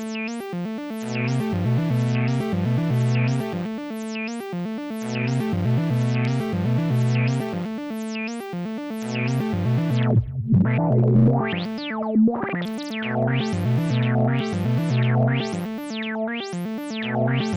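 Arturia Modular V3 software modular synthesizer playing a looping sequenced pattern over a low bass line, its filter sweeping open and shut about once every 0.7 seconds. About ten seconds in the sweep drops out, a few shorter sweeps come in, and the regular pattern returns.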